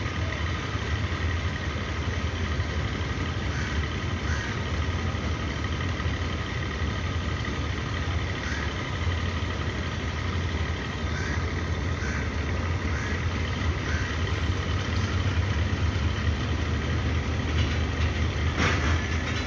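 Diesel engine of a passenger train running steadily at low revs, a continuous low rumble. Faint short high chirps are scattered over it, and there is a brief noise near the end.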